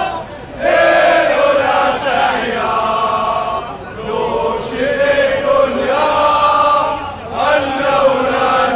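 A crowd of male football supporters chanting in unison, held phrases of a few seconds each with brief pauses between them.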